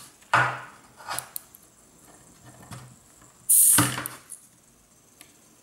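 A few knocks and scrapes of an opened cordless-drill battery pack being handled, the loudest about three and a half seconds in.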